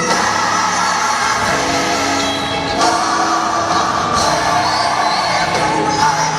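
Gospel choir singing with musical accompaniment.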